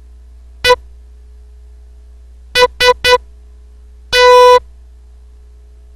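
Morse code practice tone sending a single short dit, then three quick dits, then one long dah: the letters E, S and T. A steady low hum runs underneath.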